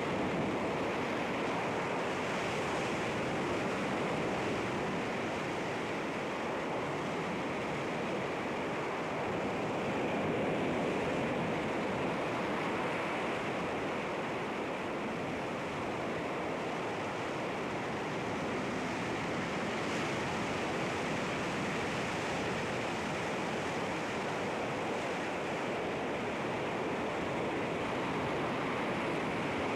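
Sea waves breaking and washing over rocks: a continuous rushing surf noise that swells and eases gently, a little louder about ten seconds in.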